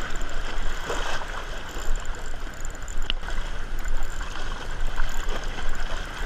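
Sea water washing and splashing against the rocks, a churning noise that swells and falls with a steady low rumble under it. A single sharp click about three seconds in.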